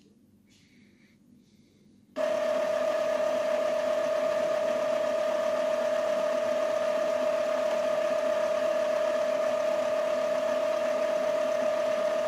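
After about two seconds of near quiet, the Epson L3156 ink-tank printer's internal motor starts abruptly and runs steadily, a constant hum with one clear mid-pitched tone. This is the printer's initial ink charge, drawing ink from the tanks into its tubes.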